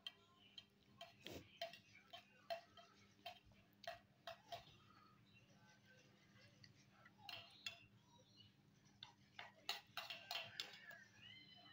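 Quiet, irregular wet clicks and smacks of a mouth chewing a soft boiled potato with sauce, over a faint steady low hum.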